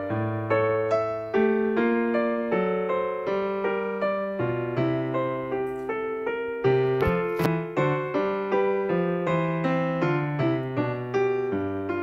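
Background piano music, a steady run of struck notes that ring and fade one after another.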